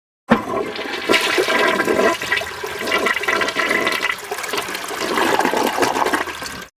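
Water rushing steadily for about six seconds, starting suddenly and cutting off abruptly.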